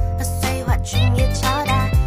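Background music with a steady beat, bass notes and a gliding melody line.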